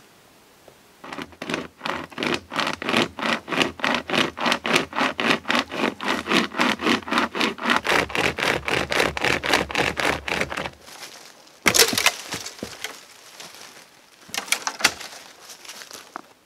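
Pocket saw cutting through a green sapling near its base in quick, even strokes, about four a second for roughly ten seconds. Then a sharp crack as the stem gives way, followed by rustling of twigs and leaves.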